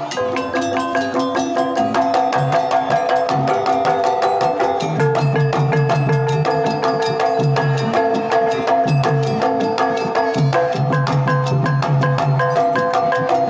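Javanese gamelan ensemble playing Banyumasan tayub music: a hand-played kendang drum beats quickly over bronze metallophones struck with mallets, with long ringing metallic tones and recurring low gong-like tones underneath.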